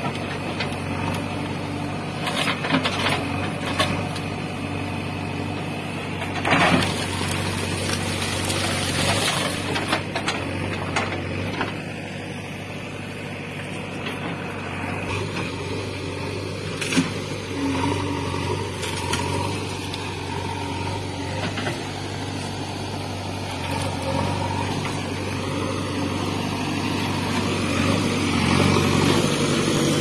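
JCB 3DX backhoe loader's diesel engine running steadily, with a few sharp knocks as it works through cut brush; the engine grows a little louder near the end.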